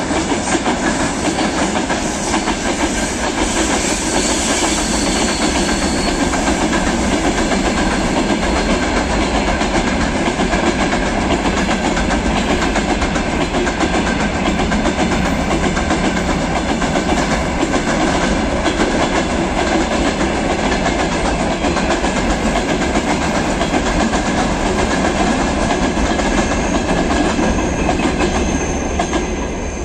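Long freight train of hopper cars, flatcars and open gondola wagons rolling past, its wheels giving a steady run of clicks on the rails. The sound dies down near the end as the last wagon goes by.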